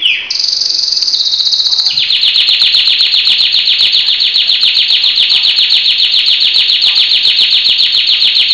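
Canary singing: a high trill that steps down a little in pitch, then a long, fast trill of rapidly repeated notes.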